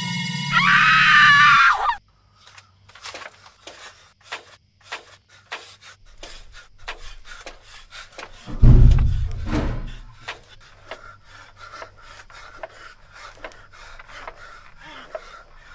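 Ominous horror-film music swells and cuts off suddenly about two seconds in. A run of short rubbing, scraping strokes follows, about two a second. A heavy low thud comes a little past the middle.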